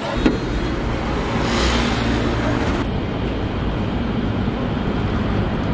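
Street traffic noise: a steady low rumble, with a hiss that swells about a second and a half in and cuts off suddenly near three seconds.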